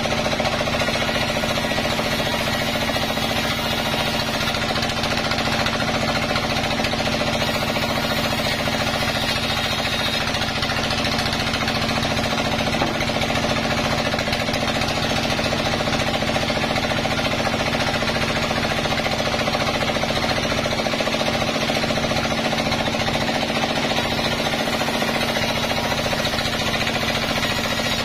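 Large sawmill band saw running steadily while green logs are fed through its blade, a constant mechanical drone with a steady hum and no breaks.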